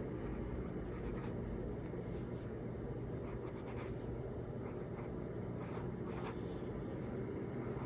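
Pelikan M200 fountain pen's extra-fine gold-plated steel nib scratching faintly across notebook paper in short strokes as words are written, over a steady low hum.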